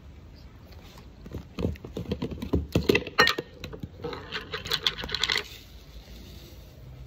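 Clicks and knocks of a plastic jar being handled, then a dense dry rattle for about a second and a half as cassava flour (farinha) is shaken in the jar over a plate of food.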